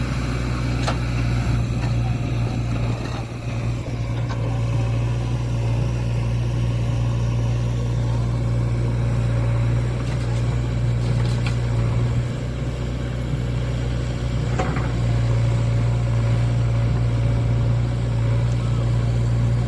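Diesel engine of heavy earthmoving machinery running steadily at a constant speed, with a few brief faint knocks, one about a second in and one near 15 seconds.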